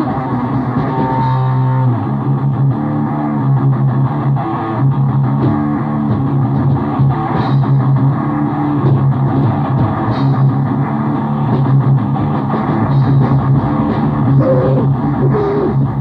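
Music: a grindcore band's 1987 demo tape recording, distorted electric guitar riffing over bass and drums.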